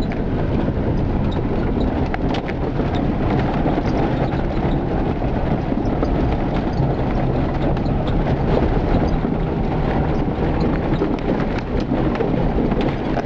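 Cabin noise of a 4x4 driving along a rough grassy track: steady engine and tyre rumble with frequent small knocks and rattles from the bumpy ground.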